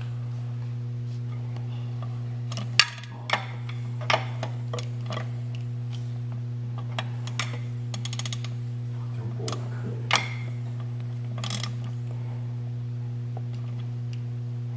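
Scattered sharp ratchet clicks from a digital torque wrench tightening drive-plate-to-torque-converter bolts, with a quick run of clicks about two-thirds of the way through, over a steady low hum.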